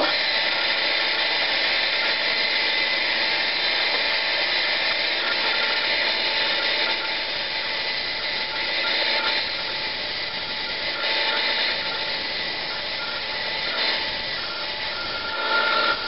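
Small belt sander running with a steel chisel pressed against the belt, grinding off heavy rust. The motor and belt noise is loud and steady, with small dips in level as the pressure on the blade changes.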